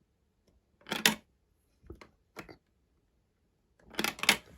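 Marbles rolling through a plastic Duplo-compatible marble run and catching in its trap pieces: short clusters of clicks and clacks, the loudest about a second in and again near the end.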